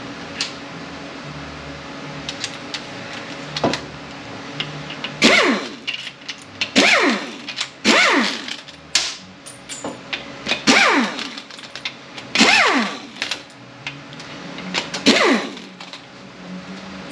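Handheld power ratchet spinning out transmission case bolts in a series of about seven short runs, each falling in pitch, with a few light metal clicks before the first run.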